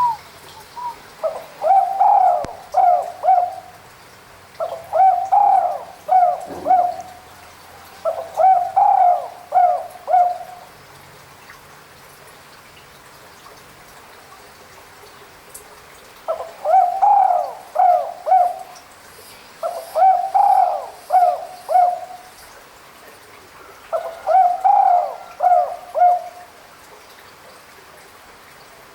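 Spotted dove (tekukur) cooing: six phrases of several notes each, in two sets of three, with a pause of a few seconds between the sets. This is the territorial call used to lure a rival.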